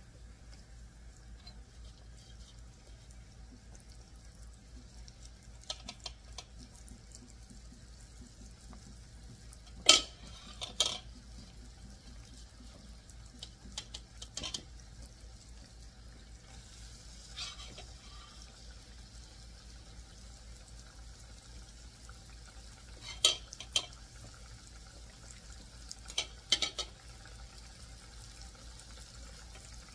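Metal utensil clinking and scraping against a pan a handful of times, sharpest about ten seconds in, over the faint sizzle of okra frying in oil and a steady low hum.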